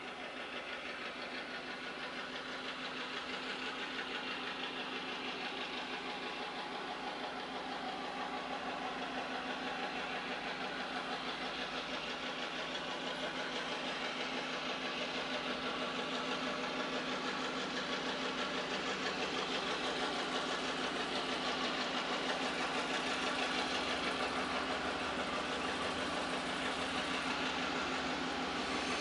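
Diesel locomotive engine running as the train approaches slowly, a steady drone with a low hum that grows gradually louder.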